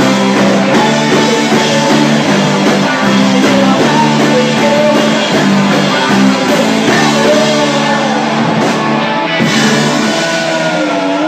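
A rock band playing live, with guitar, drums and a singing voice.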